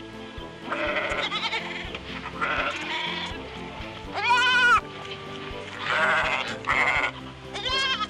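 Young ibex bleating: about six wavering bleats, the loudest about halfway through, over steady background music.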